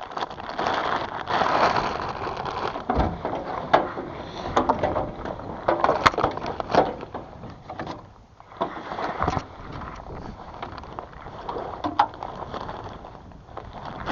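A fishing rod and tackle being handled and stowed in a boat: irregular knocks and clatter with rustling in between.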